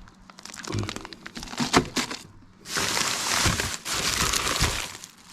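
Plastic bait packaging crinkling and rustling as frozen bait packets are handled, with a run of light clicks and knocks in the first two seconds, then two longer spells of louder rustling.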